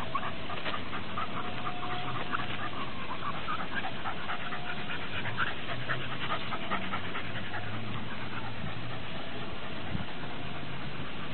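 Shiba inu panting on a walk, with many short scuffs and clicks throughout.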